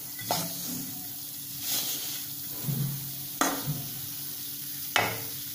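A metal spatula scraping roasted ragi flour out of a metal kadhai into a glass bowl, with a few sharp scrapes and knocks against the pan.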